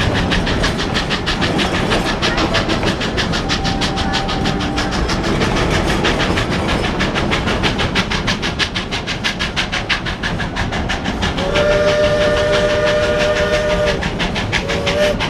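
Steam train running with a fast, even beat of exhaust chuffs. Near the end its steam whistle blows one long blast of several notes at once, lasting about two and a half seconds, then a short toot.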